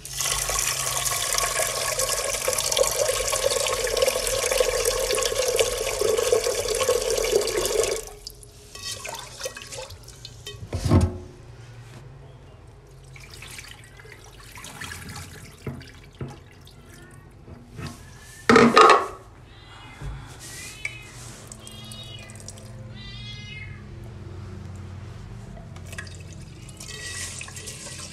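Kitchen tap running into a rice cooker's inner pot of rice in a stainless steel sink for about eight seconds, then quieter sloshing as the rice is rinsed and the cloudy water poured off into the drain, with two short louder splashes. The tap runs into the pot again near the end.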